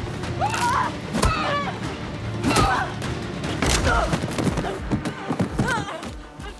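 Movie gunfight sound mix: a few separate gunshots and hits, each a sharp crack, with yelling voices, over score music.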